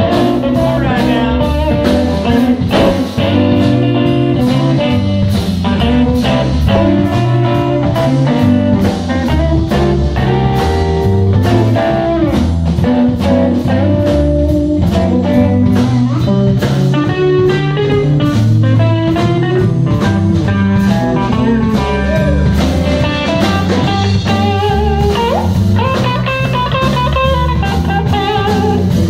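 Live blues band playing an instrumental passage: electric guitars, one of them playing a melodic lead line, over a drum kit keeping a steady beat.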